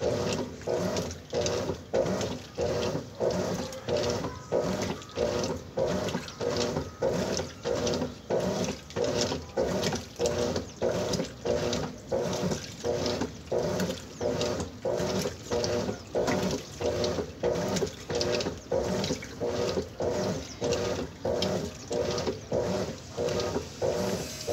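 Top-loading washing machine agitating a load of clothes in water: a rhythmic churning swish repeating a little under twice a second as the agitator strokes back and forth.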